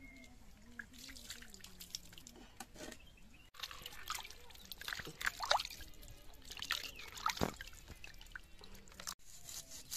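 Hands washing a fish in a plastic bucket of water: irregular splashing, sloshing and dripping as the fish is rubbed and turned.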